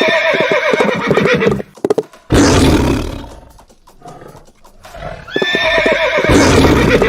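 Horse whinnying twice, about five seconds apart, each whinny followed by a loud rushing noise.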